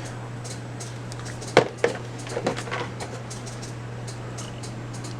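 Unboxed items being handled: a sharp click about one and a half seconds in, a second just after, then a few lighter clicks and rustles, over a steady low hum.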